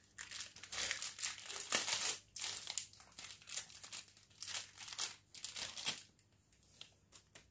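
Polythene wrapping of a detox foot patch crinkling and rustling as it is opened by hand, in irregular crackles that die away about six seconds in.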